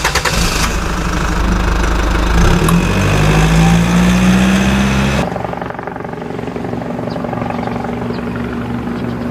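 Motor-vehicle engine sound effect: an engine running and revving, its pitch rising in the middle. About five seconds in it switches abruptly to a quieter, steady pulsing engine note.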